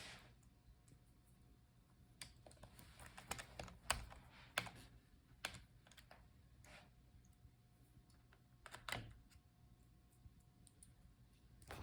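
Faint, scattered small clicks and taps of a screwdriver and small screws being worked into a laptop's battery mounts, with a busier run of clicks a few seconds in and another near the end.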